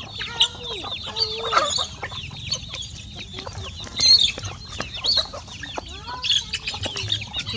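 A flock of chickens with many young chicks: a constant chorus of high, short peeps, mostly falling in pitch, with occasional lower clucks from the grown birds and a few sharper, louder calls near the middle.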